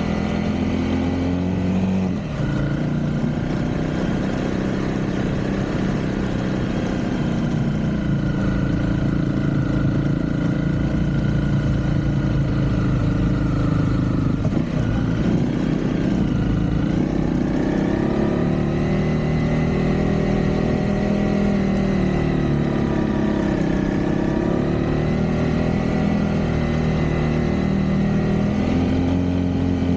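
Motorcycle engine running on the move, its pitch rising and falling with the throttle, with a short break in the tone about halfway through.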